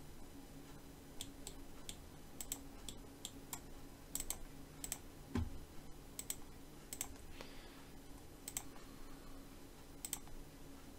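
Computer mouse clicking irregularly, about a dozen faint clicks, over a low steady hum, with one soft low thump about five seconds in.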